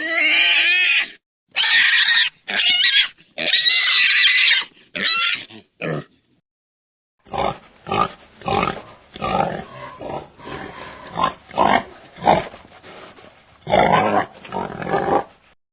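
Wild boar squealing, about six high-pitched squeals in the first six seconds. After a short pause comes a run of short, rapid grunts, about two a second.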